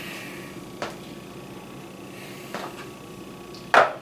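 Three sharp knocks of cookware being handled at the stove, the last one, near the end, the loudest.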